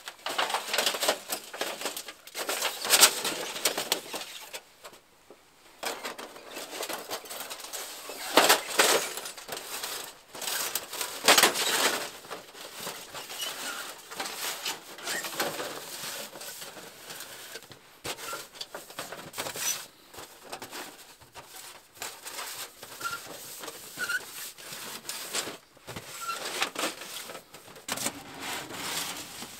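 Metal stovepipe being handled: knocks, clanks and scraping as the sections are picked up and worked along the pipe, then fitted into the collar of a small steel box stove near the end.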